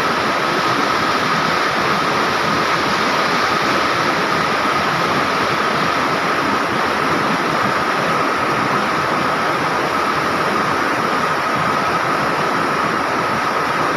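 River water rushing steadily, an even unbroken roar of flowing water, with a thin steady high tone running through it.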